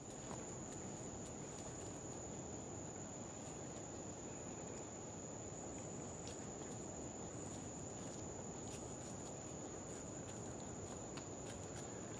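Steady high-pitched insect drone holding one pitch, over an even low hiss of rainforest ambience, with a few faint ticks.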